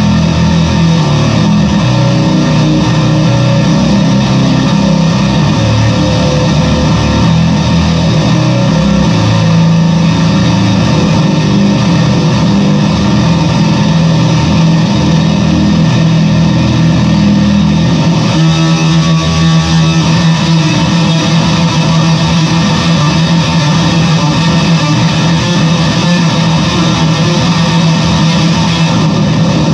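Squier Bass VI six-string bass played through a fuzz pedal: heavily distorted, sustained playing without a break, changing to a different picked pattern a little past halfway.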